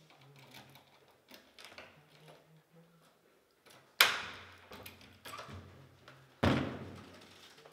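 Key scraping and rattling in a door's cylinder lock, then two sharp clunks of the lock and door handle, about four seconds in and again two and a half seconds later, as the door is unlocked.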